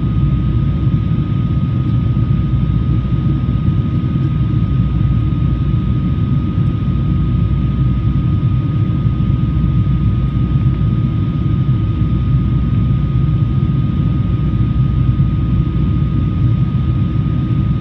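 Boeing 777-200 cabin noise in flight, heard from a window seat over the wing: a steady low rumble with a thin, constant high tone running through it.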